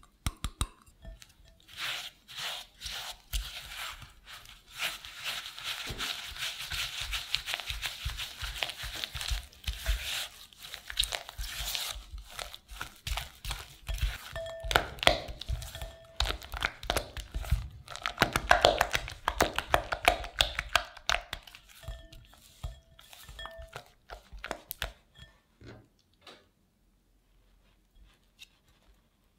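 Silicone spatula stirring softened cream cheese and brown sugar in a glass bowl: a long run of rapid scraping and sticky mixing strokes against the glass. The strokes thin out a few seconds before the end, as one spatula is scraped clean with another.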